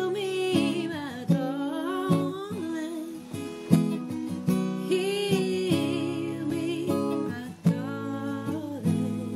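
Acoustic guitar strummed in chords, with a woman's voice singing a melody over it in drawn-out phrases.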